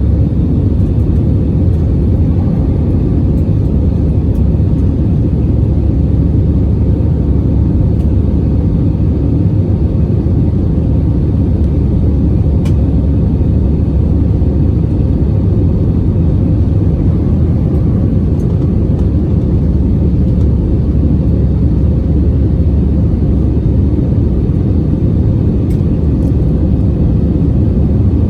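Steady loud low rumble of an airliner's engines and airflow, as heard inside the passenger cabin.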